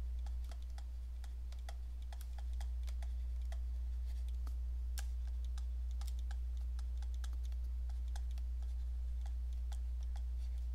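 Stylus tapping and clicking on a tablet screen while handwriting, in quick irregular clicks, over a steady low hum.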